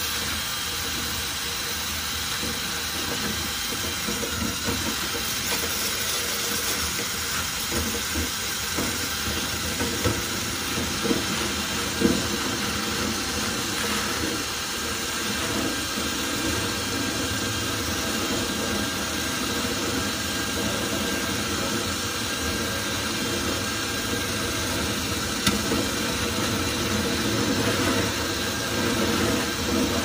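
Steady rush of air from the running clothes dryer blowing out through the vent, with a flexible cleaning rod working inside the dryer vent duct, rubbing and rattling against it. A few sharp knocks come around the middle and again later on, the rod hitting the duct or the vent hood.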